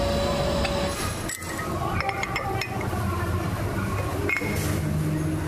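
Light metallic clinks and clicks, as of steel parts or tools being handled. A steady hum stops about a second in.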